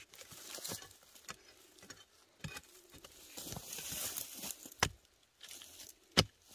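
Machete blade chopping into dry, hard soil and scraping loose earth and dry leaves aside: several sharp chops, the loudest two near the end, with rustling scrapes between.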